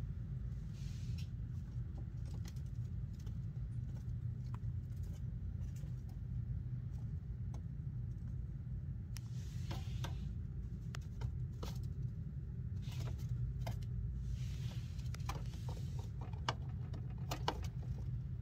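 Steady low background hum with faint, scattered small clicks and a few soft rustles.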